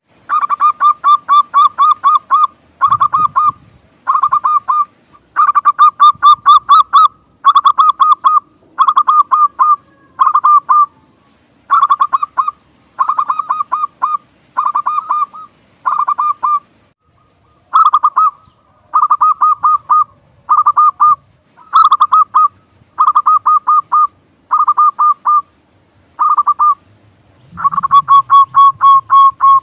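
Zebra dove (perkutut) cooing: about twenty short bursts of rapid, trilled coo notes, each burst lasting under a second to two seconds with brief pauses between them.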